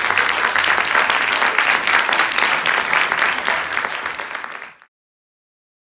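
Audience applauding: dense, steady clapping that dies away and cuts off abruptly near the end.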